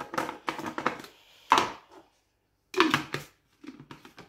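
Ninja blender's plastic smoothie cup and lid being handled, clattering and knocking in short bursts, loudest about a second and a half in and again just before three seconds.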